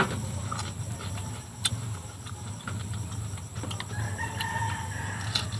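A chicken clucking and calling in the background, with one drawn-out call about four seconds in, over a steady low hum. Scattered short crunchy clicks of chewing raw vegetable slices.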